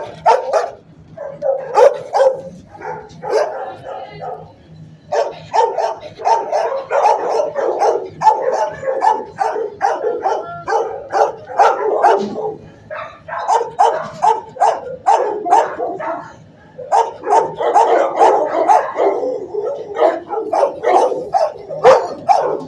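Several dogs barking in shelter kennels, a fast, overlapping chorus of barks with a couple of short lulls.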